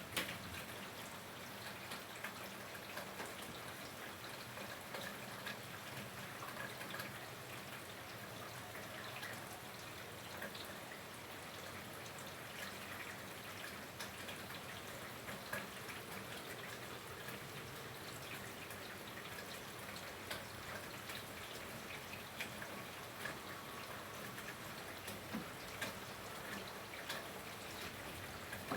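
Steady rain with drops dripping and tapping irregularly on nearby surfaces.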